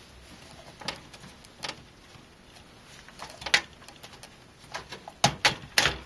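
Scattered clicks and light knocks of an ASUS Rampage V Extreme motherboard being set down on the case's metal standoffs and nudged into position against the I/O panel. A quick cluster of sharper knocks comes near the end.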